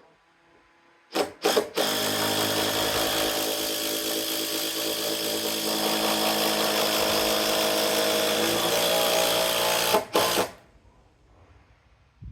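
Petrol chainsaw running under load, cutting a wooden sleeper. It opens with two short blips about a second in, then runs steadily for about nine seconds before cutting out. The owner says the saw was struggling and is unsure whether it is starved of air or of fuel.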